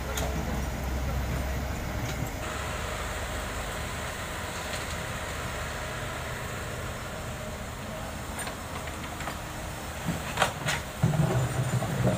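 Komatsu hydraulic excavator's diesel engine running steadily as it swings and works its bucket, with road traffic behind it. Near the end come two sharp knocks and a louder low engine rumble.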